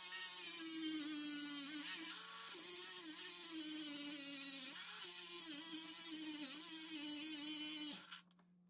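Cordless angle grinder running and grinding through a rusted nut and stud remnant on steel, its pitch dipping and recovering as the disc bites under load. It stops shortly before the end.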